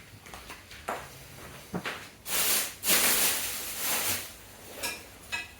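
Small hard objects being handled on a desk: a few scattered clicks and clatters, with a longer stretch of rustling or scraping in the middle.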